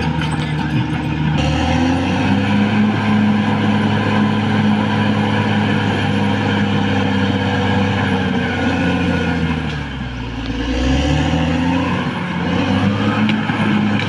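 Caterpillar D6R XL bulldozer's diesel engine working at high revs. The engine note steps up a second or so in and holds steady. About ten seconds in it sags and goes quieter, then picks up again.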